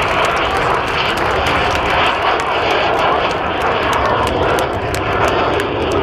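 Jet roar of the Frecce Tricolori's Aermacchi MB-339 jet trainers passing low in formation: a loud, steady rushing noise, with scattered sharp clicks over it.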